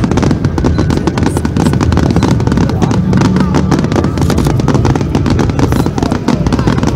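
Fireworks crackling and popping in a rapid, unbroken stream, with a crowd of spectators talking over them.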